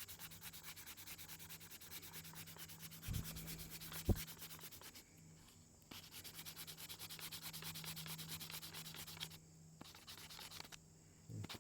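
Sandpaper on a sanding block rubbed over wooden revolver grips in quick, even back-and-forth strokes, taking off the old finish. The strokes pause for about a second midway and again near the end, and there are two low thumps a few seconds in.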